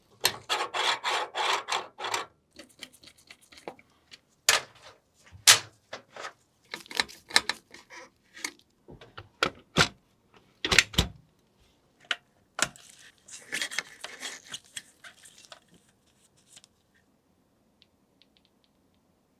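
Computer case and PC parts being handled and fitted together: scattered sharp clicks and knocks with stretches of rubbing and scraping, which stop about three seconds before the end.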